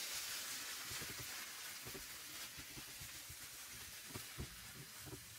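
Faint sizzle of a potato and vegetable filling frying in a pan over low heat, fading away, with a few light knocks.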